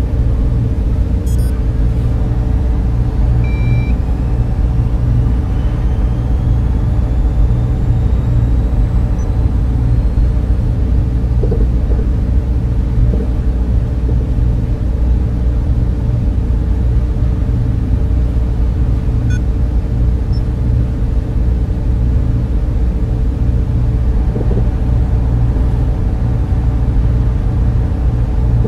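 Sci-fi spaceship interior ambience: a steady deep machinery rumble and hum, with a short electronic beep about three and a half seconds in and faint tones slowly rising in pitch during the first ten seconds.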